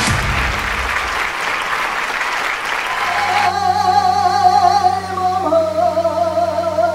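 Applause for about the first three seconds, then a man singing long, wavering held notes into a microphone, unaccompanied, over a steady low hum.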